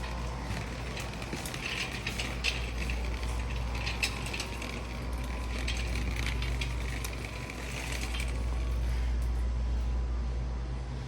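Quick light clicking and rattling over a steady low rumble. The clicks and rattles stop about eight seconds in.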